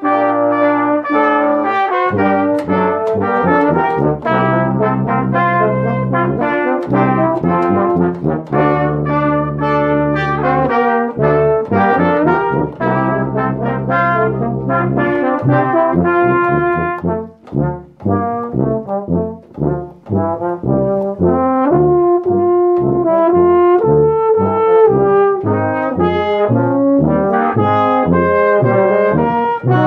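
Brass ensemble playing a piece, with long held low notes under the melody through the first half, then shorter, detached notes.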